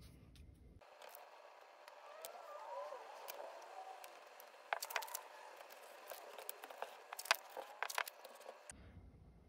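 Faint handling sounds as a thin metal solder stencil is shifted into line over a circuit board and taped down with painter's tape: soft rustling and scattered small clicks and ticks, mostly in the second half.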